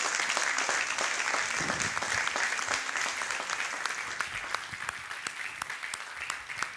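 Audience applauding: dense, even clapping that gradually thins out into scattered individual claps toward the end.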